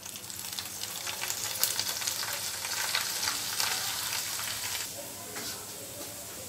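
Papad frying in hot oil in a frying pan: a steady sizzle full of small pops. It is loudest in the middle and eases a little near the end.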